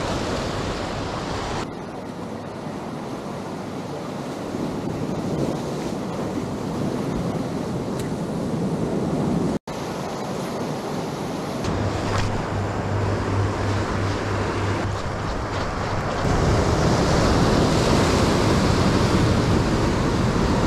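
Ocean surf washing against a rock ledge, with wind noise on the microphone. The sound changes abruptly several times and drops out for an instant about halfway, and is loudest in the last few seconds.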